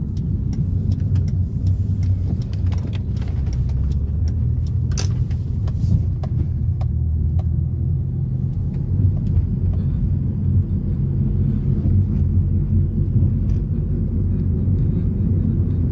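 Steady low rumble of engine and road noise inside a moving car's cabin, with scattered faint clicks over the first six seconds or so.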